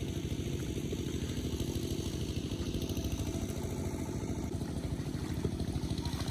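Engine of a kuliglig (two-wheeled hand tractor) running steadily with a fast, even chug.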